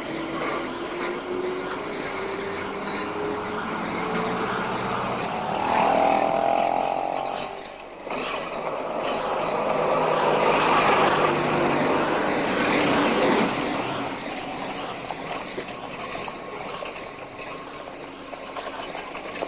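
Street traffic and tram running noise, with a motor whine rising steadily in pitch over the first five seconds. The noise breaks off briefly about eight seconds in and then runs on as a steady rumble and hiss.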